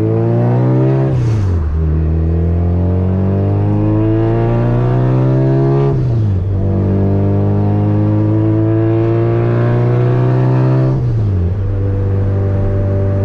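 Honda Civic's engine heard from inside the cabin, pulling up through the gears. The pitch climbs steadily in each gear and drops sharply at upshifts about one, six and eleven seconds in, then holds steady in the last gear.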